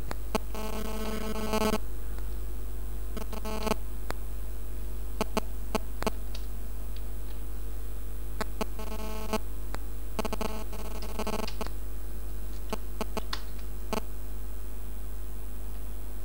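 Steady low electrical hum, with a few faint clicks and brief faint tones scattered through it.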